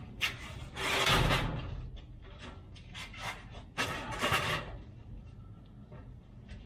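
Workshop handling noises: two bursts of scraping and rustling, about a second in and about four seconds in, with a few light knocks between them.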